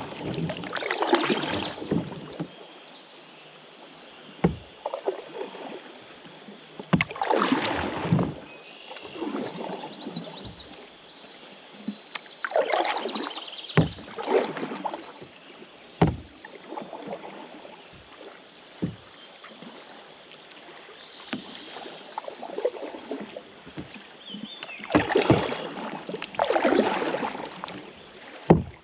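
Kayak paddle strokes: the blades swishing and splashing through the water in pairs, one set every several seconds, with sharp knocks in between.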